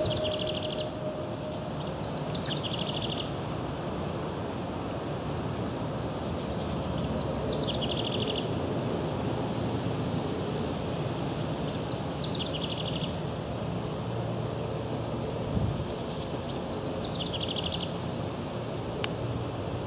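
House wren singing: five bubbly songs, each a quick tumble of notes falling in pitch and ending in a fast trill. The first two come close together, then one about every five seconds, over a steady low background rumble.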